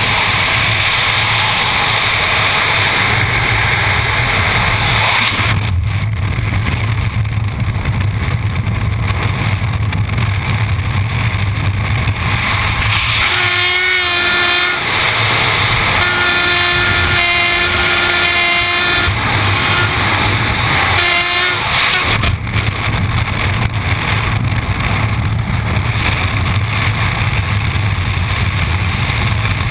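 Wind rushing past a helmet-mounted camera in skydiving freefall, a loud steady rumble. Midway, a whistling tone sounds over it in three stretches for several seconds.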